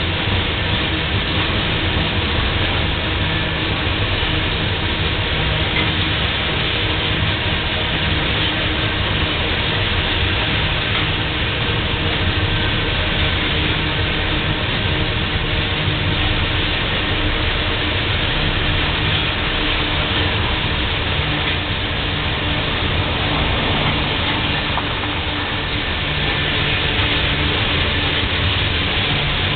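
Railroad tank cars of a slow-moving freight train rolling past: a steady rumble of steel wheels on the rails.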